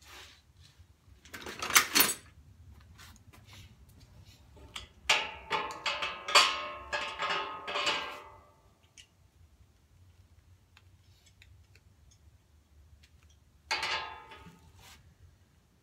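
Clinks and clanks of steel parts and a hand tool being handled while a wheel is fitted onto a steel cart axle: a couple of sharp clicks about two seconds in, a run of ringing metallic clanks from about five to eight seconds, and another short clatter near the end.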